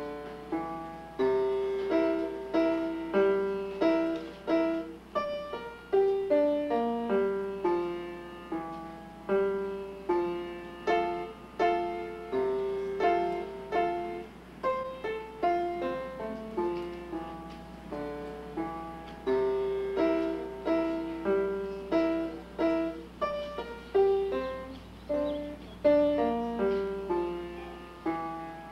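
Grand piano played by a child: an unhurried melody of struck notes in the middle register, each ringing and fading before the next, over a steady low electrical hum.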